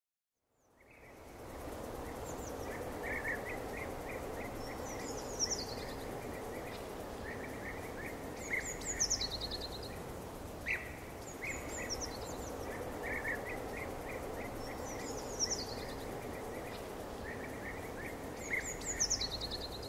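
Forest ambience with birds singing over a steady background hiss: bursts of quick chirps at one pitch, and a high phrase that falls in pitch, repeating about every three seconds. It fades in over the first second or so.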